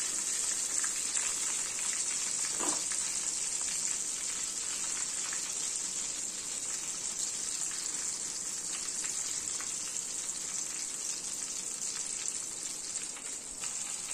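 Batter-coated green chillies (mirchi bajji) deep-frying in hot oil in a kadai: a steady sizzle with many small pops.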